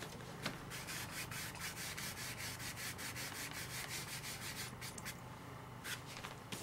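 A dry crescent (mezzaluna) stencil brush scrubbing over a painted surface in quick, scratchy back-and-forth strokes, with a short break about five seconds in. The brush is rubbed almost dry of paint, which is how dry-brush shading is laid on.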